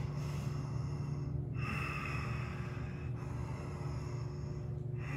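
A man's slow "Darth Vader breath": audible breathing through a narrowed throat, three long breaths of about a second and a half each, over a steady low hum.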